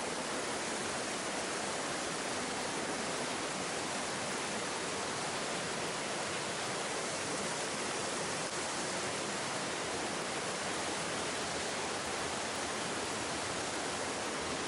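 Mountain stream rushing and cascading over rocks in a narrow gorge: a steady, unbroken rush of white water.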